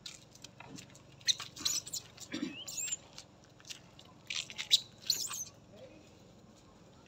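Long-tailed macaques giving high-pitched squeaks and chirps, some gliding in pitch. They come in two clusters, about a second in and about four seconds in, with a short low grunt between them.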